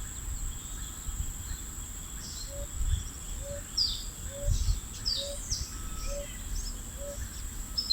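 Wild birds calling with short, sharply falling chirps, over a steady high-pitched insect drone. From about two and a half seconds in, a low short note repeats roughly every two-thirds of a second, and a low rumble comes and goes underneath.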